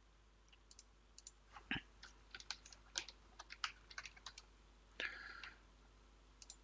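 Faint typing on a computer keyboard: a quick, uneven run of keystrokes as a name is entered, then a brief soft hiss about five seconds in.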